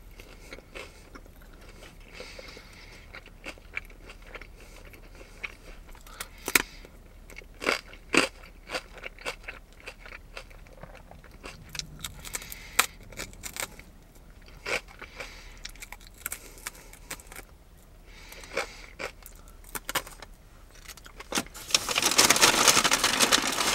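Close-up chewing of a fried corn dog, with scattered sharp crunchy clicks and mouth sounds. Near the end a loud rustling starts and carries on for about two seconds.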